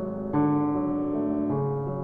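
Background music: slow piano or electric piano chords, a new chord struck about a third of a second in and another near the middle, each held and fading.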